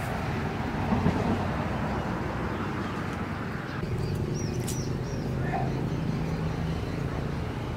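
Outdoor ambience: a steady low rumble, with a few small high bird chirps about halfway through.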